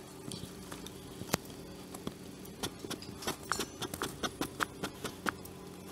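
Light clicks and taps of the plastic parts of an Orpat HHB-187E hand blender as its stainless-steel blending shaft is taken off the motor handle and handled. One sharper click comes after about a second, then a quick scatter of small knocks from about two and a half to five seconds in, over a faint steady hum.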